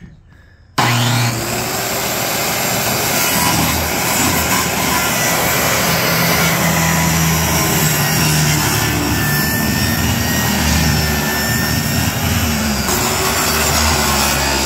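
Electric circular saw starting abruptly about a second in and then cutting steadily through a sheet of plywood.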